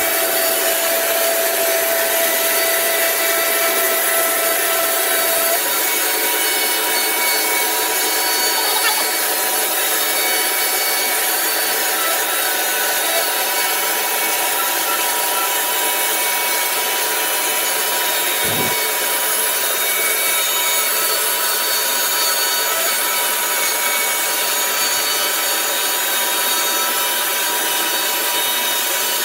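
Horizontal band sawmill cutting lengthwise through a log: a steady sawing noise of the band blade in the wood, with one brief low sound about two-thirds of the way through.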